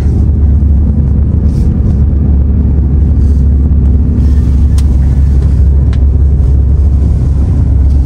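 Steady low road rumble of a moving vehicle, heard from on board as it drives along.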